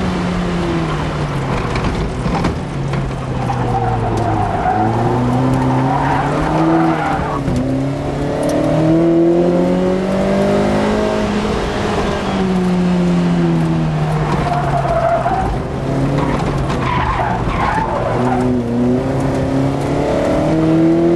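Lotus Elise Sport 160's 1.8-litre Rover K-series four-cylinder engine heard from inside the cabin, its note rising and falling several times as the car is driven hard through the gears. Tyres squeal in a few corners.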